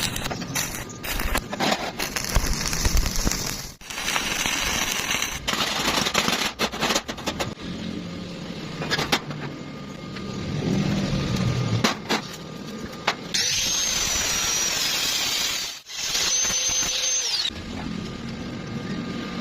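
Metalworking power-tool noise in short, abruptly changing stretches: sharp clicks and knocks, crackling hiss, and for about four seconds past the middle a high, wavering whine that cuts off suddenly.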